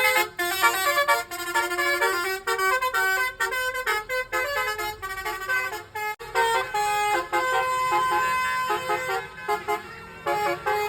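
Bus 'telolet' musical horn playing quick stepping melodies of several notes, breaking off briefly about six seconds in and starting again.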